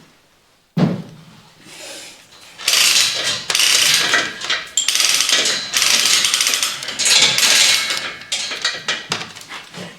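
Metal work on a hydraulic winch: a knock about a second in, then loud mechanical rattling in several long bursts.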